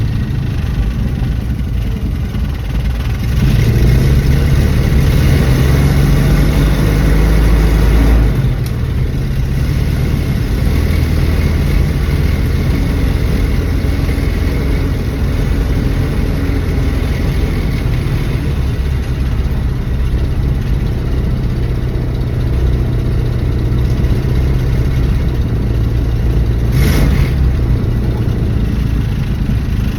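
1974 Dodge Dart's engine running steadily while driving, louder and rising in pitch as it accelerates from about three to eight seconds in, then easing back to a steady pull. A brief sharp noise near the end.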